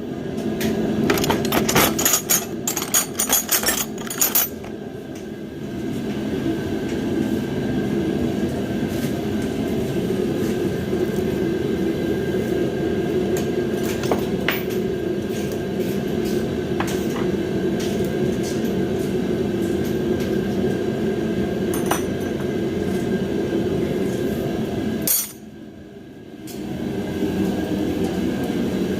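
Metal tools and parts clinking and clattering for the first few seconds, then only occasional light ticks, over a steady droning hum that drops out for a moment near the end.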